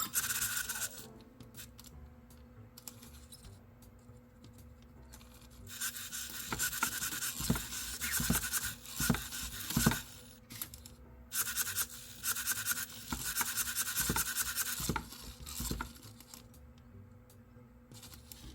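Small EMO desktop robot's motors whirring and its plastic body scraping, in two long bursts with a few sharp taps in the first. The robot is repeating the same movement over and over without stopping, a glitch after being lifted off its charger.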